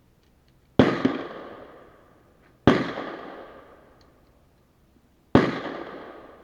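Three shots from a suppressed Glock 17 9mm pistol, about two and then nearly three seconds apart, each sharp crack trailing off in a long echo.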